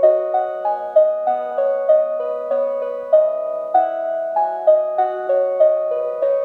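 Music: a piano-like melody of single plucked notes, each starting sharply and fading, about three notes a second.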